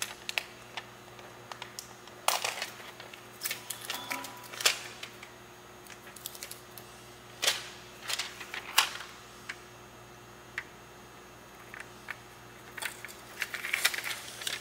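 Scattered short crinkles and clicks from handling a clear plastic sticker sheet and its backing, with a busier run of handling noises near the end as the sticker is laid against the plastic rocket body.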